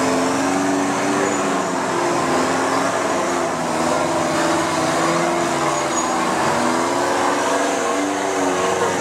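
Off-road racing rock buggy's engine revving up and down repeatedly, its pitch rising and falling as the driver works the throttle to climb a boulder section.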